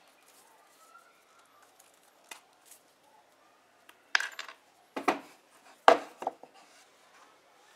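Steel hog-ring pliers being handled and set down on a plywood board, with metal clinks and knocks. There are four sharp knocks in the second half, and the loudest is about six seconds in.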